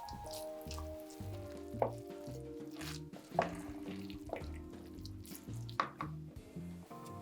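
Background music with a repeating bass line, over which kitchen utensils click sharply against dishes a few times, loudest about two, three and a half and six seconds in.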